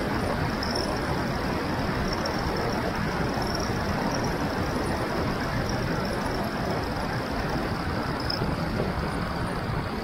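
Steady rush of wind over an action camera's microphone on a bicycle coasting fast downhill, mixed with the noise of tyres rolling on asphalt.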